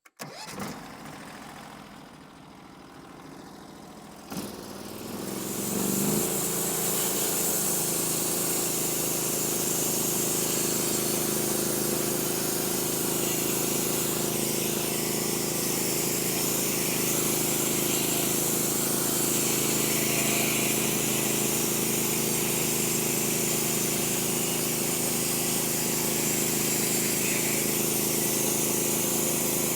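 Bandsaw sawmill's engine running low, then throttling up about five seconds in and running steadily at cutting speed, driving the band blade through a cut.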